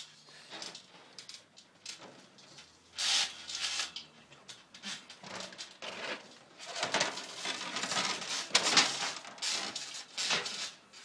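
Scuffling and rustling of two people wrestling on a trampoline mat, with irregular knocks and clatter as props, a board and a metal frying pan, are picked up and handled. The noises come in scattered bursts, busier in the second half.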